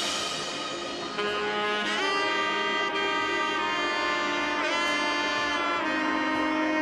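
Background music: a lead melody of long held notes with pitch bends, over a steady backing.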